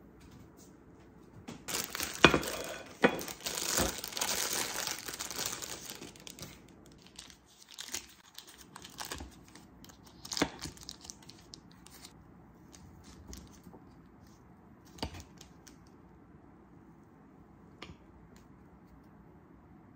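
Clear plastic bag crinkling and tearing as it is pulled off a pound cake, loudest for a few seconds near the start. After that, scattered light clicks and knocks.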